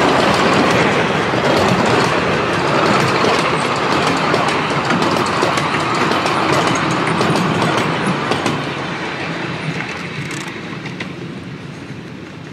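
Passing carriages of a 7¼ inch gauge miniature railway train, their wheels rumbling and clicking over the rail joints close by, then fading as the train draws away in the last few seconds.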